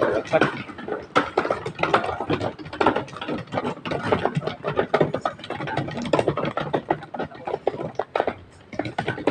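Phone microphone handling noise: irregular rustling, scraping and knocking as the phone is carried and rubs against clothing.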